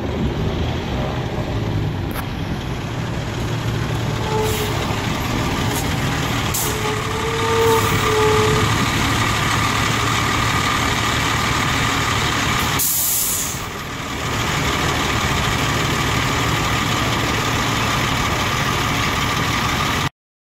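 Fire engine's diesel engine running as it pulls up and stops, with a few short brake squeals between about four and nine seconds in. About thirteen seconds in comes a sharp hiss of the air brakes being set, and the engine then idles steadily.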